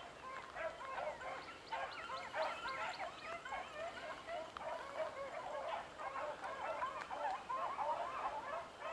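A pack of beagles baying together on a rabbit's trail, many voices overlapping continuously: the dogs are running the rabbit by scent.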